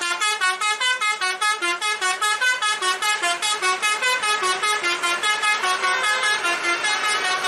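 Bus 'telolet' musical horn of the 'basuri' kind, playing a fast melody of short stepped notes, about six a second. It begins suddenly and keeps going.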